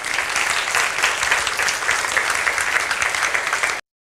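Audience applauding: steady, dense clapping that cuts off suddenly near the end.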